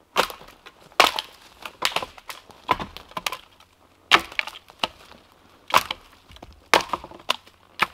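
Footsteps pushing through forest undergrowth, dry twigs and branches snapping and cracking underfoot in irregular sharp cracks about once a second.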